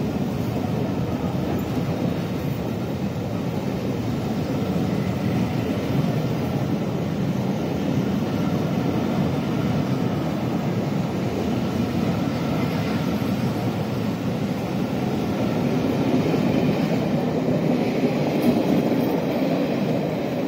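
Passenger coaches rolling past on the rails: a steady rumble of wheels on track, swelling a little near the end as the last coach goes by.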